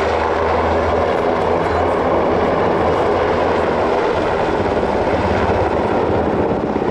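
Sikorsky UH-60 Black Hawk helicopter in flight: a loud, steady beat from the main rotor over the noise of its twin turbine engines. The blade beat grows more distinct near the end.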